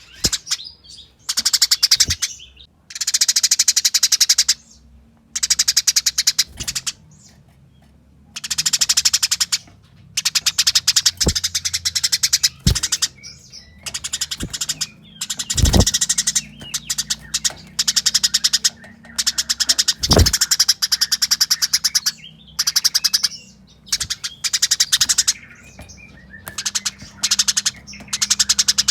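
Eurasian tree sparrows giving fast, densely packed chattering chirps in repeated bursts of one to two seconds, the aggressive calls of sparrows fighting. A few dull thumps fall in the middle.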